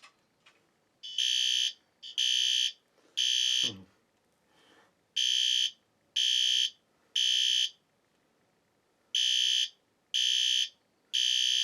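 System Sensor P2RL fire alarm horn strobe's horn sounding in the temporal-3 evacuation pattern: three half-second, high-pitched blasts about a second apart, then a pause, repeating three times.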